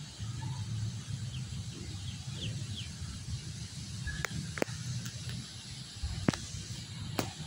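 Outdoor background with a steady low rumble and a few faint short chirps in the first half, then four sharp clicks or snaps in the second half.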